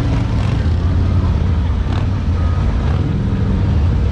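Several large cruiser motorcycles running at walking pace together, a steady low engine rumble, with faint crowd chatter.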